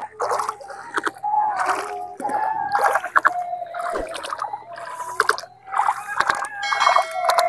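Water splashing and sloshing in irregular bursts as rice seedlings are pushed by hand into a flooded paddy, with women's voices faintly underneath.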